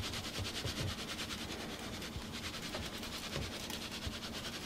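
Dry barbecue rub shaken from a plastic shaker onto a pork butt in a foil pan, the granules pattering faintly in a rapid, even rhythm.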